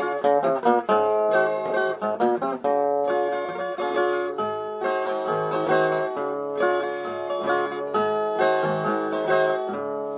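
Instrumental break in a sertanejo love song: plucked acoustic string instruments play a melody of quick, changing notes over a steady low bass line, with no singing.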